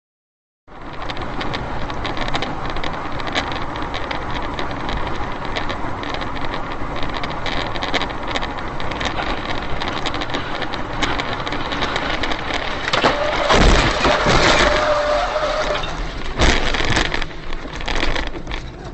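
Steady wind and road noise inside a moving car, then loud crashing and cracking about two-thirds through, with a held tone under it and more sharp impacts a few seconds later, as a jet airliner breaks apart across the highway ahead.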